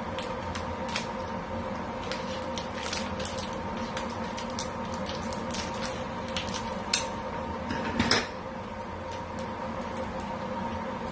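Dry misua noodles being pulled from their paper wrapper and dropped into a pan of soup: crinkling of the wrapper and light crackles throughout, with a louder rustle about eight seconds in, over a steady electrical hum.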